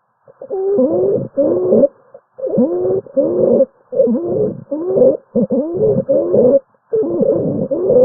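Lung sounds heard through a stethoscope: short creaking, grating bursts with each breath in and out, repeating about once a second, the pleural friction rub of inflamed pleural layers rubbing together.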